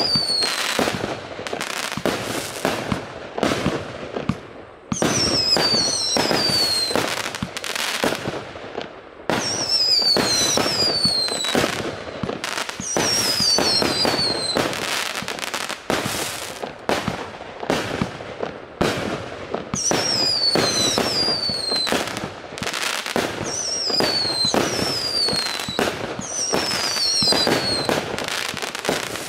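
A 99-shot, 1-inch (25 mm) fireworks battery (cake) firing a continuous run of shots and cracking bursts. Every three to four seconds a group of falling whistles sounds.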